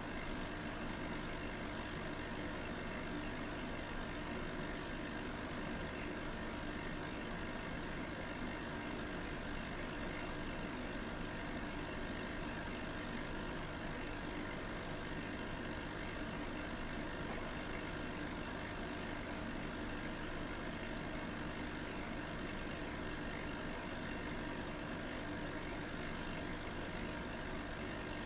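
Steady, unchanging mechanical hum with a hiss over it; no separate sounds stand out.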